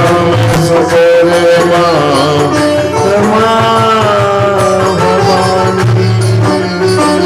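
Indian devotional music: a melodic instrumental passage with gliding held notes over tabla drumming, played between sung lines of the chant.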